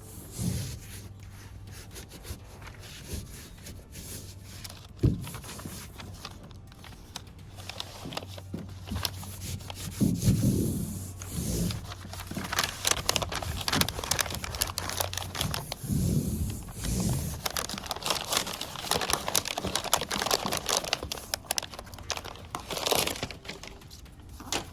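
Crinkling and crackling of a surfboard grip pad's backing as it is peeled away, and hands rubbing and pressing the adhesive-backed pad down onto a car's metal roof. A few dull thumps come through the rustle.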